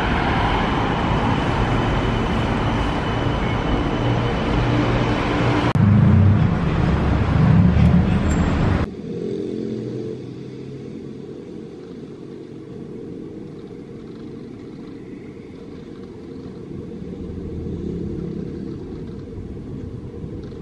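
City road traffic: vehicles running past on a busy street, with a heavy engine rumbling close by about six seconds in. About nine seconds in the sound drops abruptly to a quieter, muffled low rumble of distant traffic.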